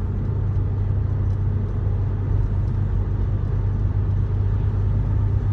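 BMW E90/E92 3 Series heard from inside the cabin, pulling along at very light throttle with a steady low drone of engine and road noise. There is no stutter, a sign that cleaning the Vanos solenoids has cured it.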